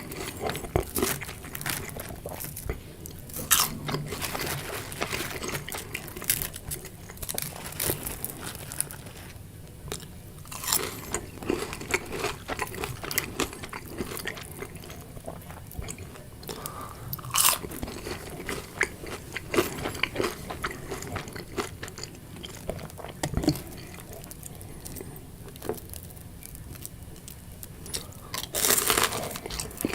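A person biting and chewing crunchy fried food: irregular crisp crunches, with a louder bite every few seconds.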